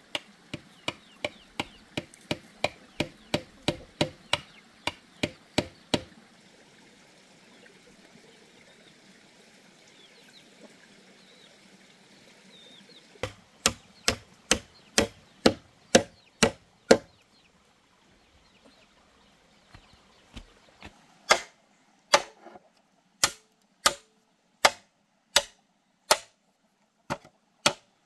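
Hammer blows on bamboo posts and a wooden peg: a quick run of about two or three strikes a second, a pause of several seconds, another short run, then slower, evenly spaced blows near the end.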